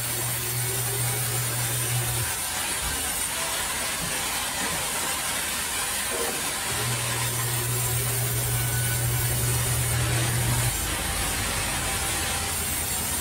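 Large sawmill band saw running and cutting lengthwise through a log, a steady rushing saw noise. Under it a low hum drops out about two seconds in and returns from about seven to eleven seconds.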